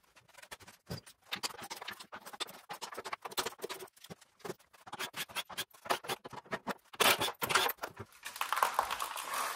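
Irregular clicks, clinks and scrapes of hand tools and metal parts being handled, with a louder cluster about seven seconds in and a denser rustling, scraping stretch near the end.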